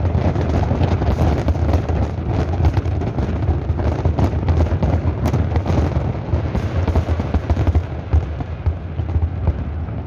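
Large fireworks display: a dense, continuous barrage of shell bursts and crackling, with heavy low booms underneath, easing off slightly near the end.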